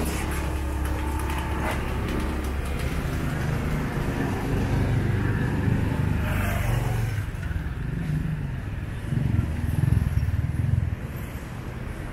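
Street traffic: vehicle engines running and passing, a steady low rumble that swells louder from about nine to eleven seconds in.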